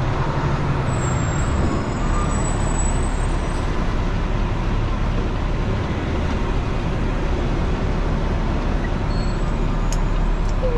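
Semi truck heard from inside its cab while driving slowly: a steady diesel engine hum mixed with road noise.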